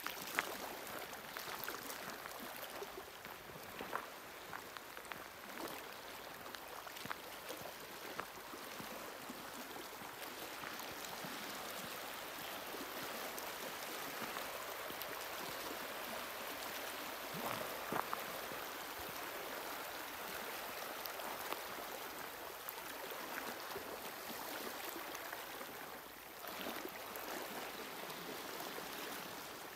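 Small waves lapping and trickling at the edge of a partially frozen lake, a steady watery wash broken by a few faint splashes and ticks.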